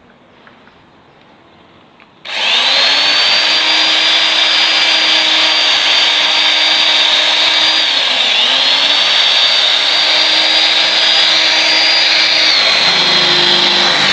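Handheld electric power tool starting about two seconds in and running loudly and steadily with a high motor whine, which sags twice under load and recovers, then begins to wind down at the end.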